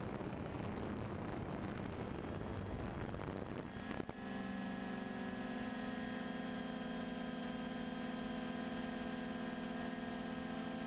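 Rushing noise for about four seconds, then a click, then the steady multi-tone whine of a quadcopter drone's motors and propellers holding a slow glide.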